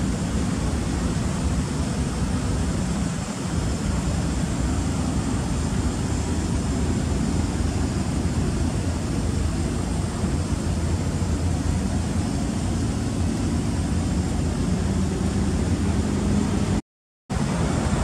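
The SW20 Toyota MR2's turbocharged 3S four-cylinder engine idling steadily, under an even rushing noise. The sound drops out completely for about half a second near the end.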